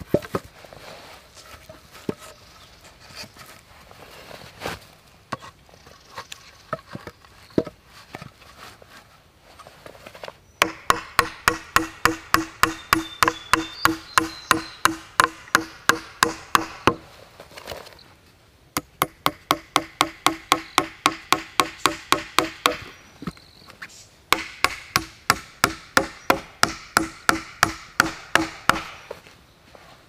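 Hatchet chopping at a log in quick, light strokes, about four to five a second, in three runs of several seconds each with short pauses between; each stroke carries a ringing pitched note. Before the chopping, scattered knocks of logs being handled and set down on the ground.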